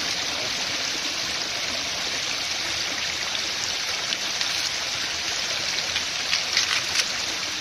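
A small stream running over rocks, a steady rush of water. A few light crackles come through about halfway in and toward the end as husk sheaths are stripped off a bamboo shoot.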